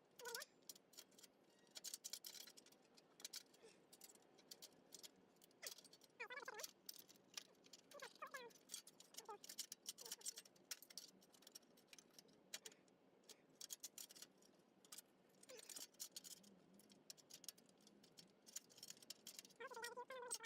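Near silence, with faint scattered clicks and taps of hand work on a rusted exhaust heat shield and its bolts, and a few faint wavering cries.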